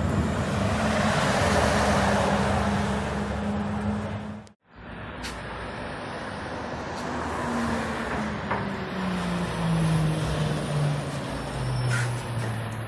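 Articulated lorries passing on a wet street. A steady engine drone with tyre hiss is heard, then after a short break a second lorry's engine drone falls steadily in pitch as it comes up and passes close by.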